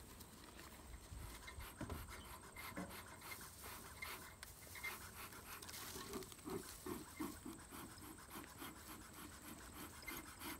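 Bee smoker being lit with pine straw: the straw rustles as it is packed into the can, then from about halfway the bellows puff in an even rhythm, about three strokes a second.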